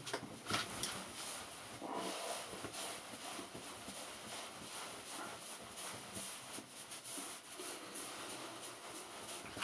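Towel rubbing over the face and neck to dry them: soft, irregular fabric rustling, with a few sharper scuffs in the first second as the towel is taken up.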